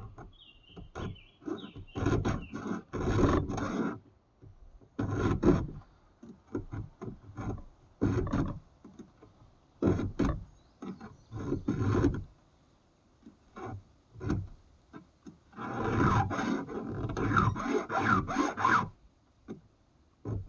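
A file rasping across a chainsaw chain's cutters in repeated strokes, sometimes single and sometimes in quick runs, with short pauses between.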